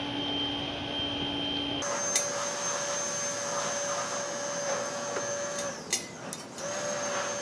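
Steady electric motor hum with a high whine over a noisy hiss. The pitch jumps abruptly about two seconds in, and the sound drops out briefly near the end, with a few clicks.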